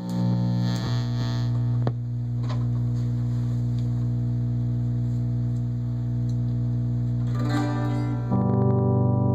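Electric guitar played through a Fender Tweed Deluxe clone tube amp: a chord struck and left to ring out for several seconds, with a fresh, louder chord struck about eight seconds in.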